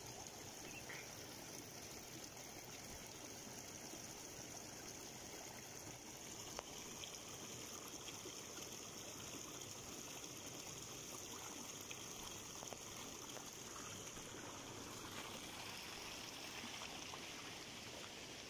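Shallow mountain stream running over stones: a faint, steady rush of water.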